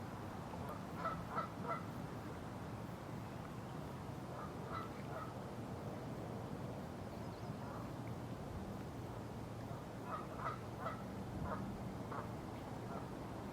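Bird calls: short notes in quick runs of three or four, heard several times over a steady low background hum.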